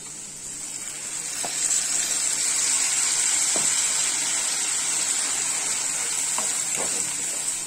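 Onion, garlic and ginger paste sizzling in hot oil with frying potato cubes in a kadai. The sizzle grows louder over the first two seconds and then holds steady. A few light spatula taps come as it is stirred.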